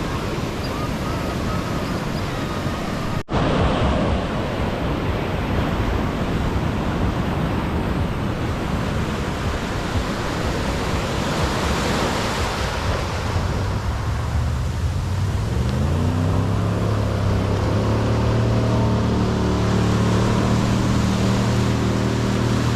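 Ocean surf washing on a beach, with wind buffeting the microphone. About two-thirds of the way through a motor's drone comes in, rising in pitch and then holding steady.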